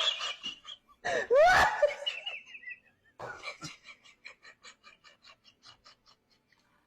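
A loud, high-pitched cry with gliding pitch, then a person laughing in short, wheezy breaths that fade away.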